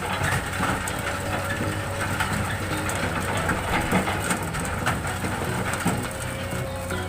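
Komatsu PC200 excavator's diesel engine running steadily under load, with irregular clattering and scraping of sand and stones as it digs and loads them.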